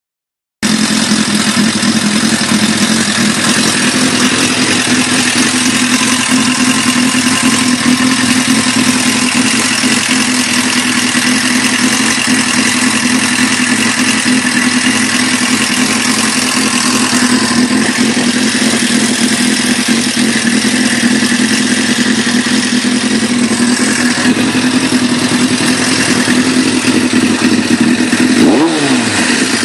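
Honda CBR600 PC25's inline-four engine idling warm, with a mechanical noise that the owner finds suspicious. Near the end the revs rise briefly and fall back.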